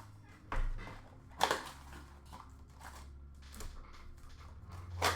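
Rustling and crinkling of trading card packs and boxes being opened and handled, in several separate short strokes.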